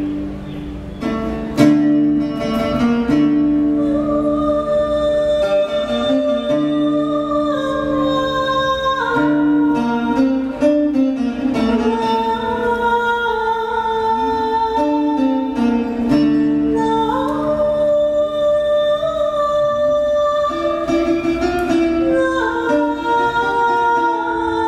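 Live ensemble music: a woman singing long held notes that step from pitch to pitch, over plucked string instruments.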